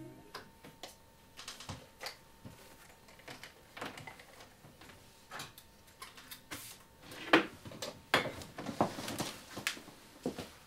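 A person handling small objects and moving about at a studio desk: scattered clicks, taps and rustles at uneven intervals, busier and louder from about seven seconds in.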